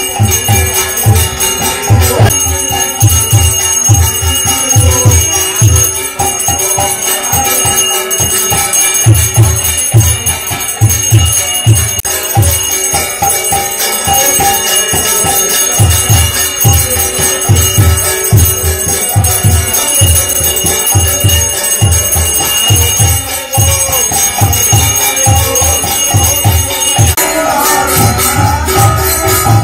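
A brass hand bell rung without pause during arati, over kirtan music with a steady drum beat about twice a second. The bell stops near the end while the drumming goes on.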